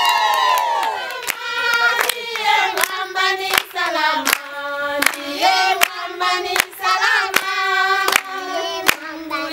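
A group of voices singing together to hand claps, about one clap every three quarters of a second. A high cheer falls away in the first second.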